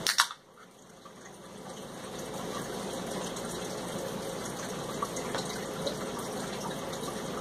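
An aluminium drink can cracked open with a sharp hiss right at the start, then a steady hiss with a couple of faint ticks.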